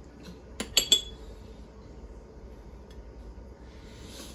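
Metal spoon clinking against ceramic crockery: three quick clinks with a short ring, a little over half a second in, then only faint room hum.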